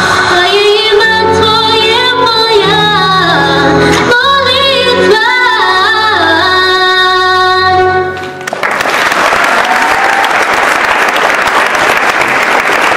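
A girl sings a melody into a microphone over sustained electronic keyboard chords, ending on a long held note about eight seconds in. Audience applause and cheering in a large sports hall follow to the end.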